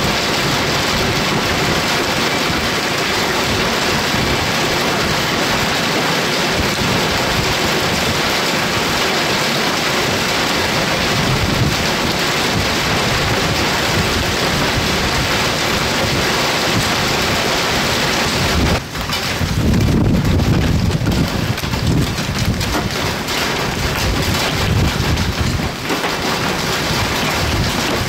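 Hail and heavy rain pelting wet pavement: a dense, steady hiss and patter. About two-thirds of the way through the sound dips for a moment and comes back with a deeper low rumble under the hiss.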